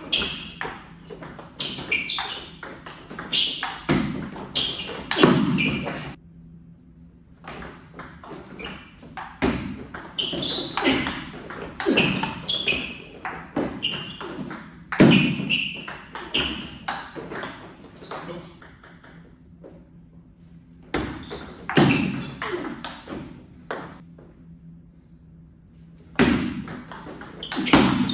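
Table tennis rallies: the ball clicks off the bats and the table in quick back-and-forth series, with a few short pauses between points.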